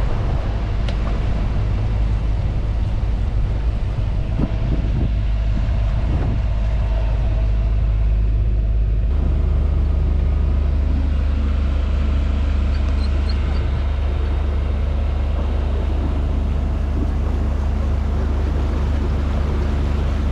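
A boat's engine running steadily under way: a low, even drone. About nine seconds in, the sound changes abruptly to a slightly different steady drone.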